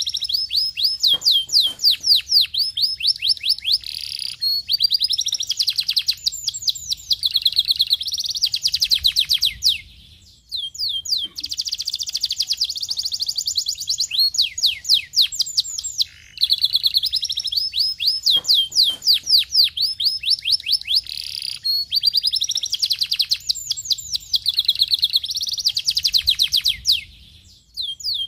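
Domestic canary singing a long song of rapid trills, rolls and chirps, with brief pauses about ten and sixteen seconds in. The same song passage repeats about every seventeen seconds.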